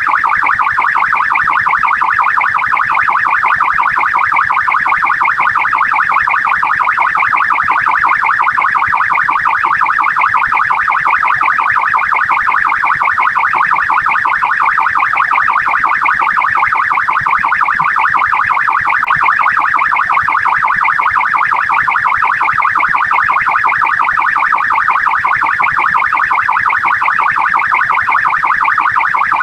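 Australian police car siren sounding continuously in a fast, rapidly cycling warble, the siren of a police car responding to a call.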